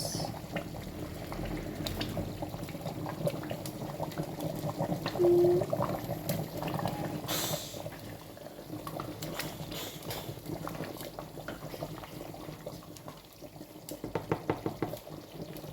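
A pot of liquid bubbling at the boil, with small clicks and knocks throughout. A short steady tone sounds about five seconds in.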